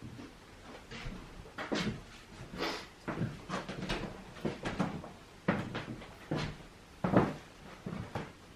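Irregular knocks, clicks and light clatters, about a dozen of them, of things being handled and set down.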